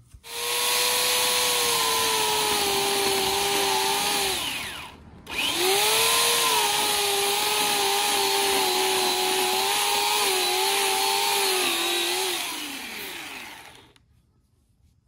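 Electric chainsaw cutting a log in two runs: the motor whines steadily, dies away with a falling pitch about four seconds in, starts again a second later, and winds down with a falling whine near the end.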